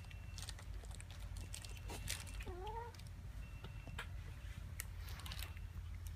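Cat under the effect of silver vine (matatabi), with scattered small clicks and rustles and one short call that dips and rises, about two and a half seconds in.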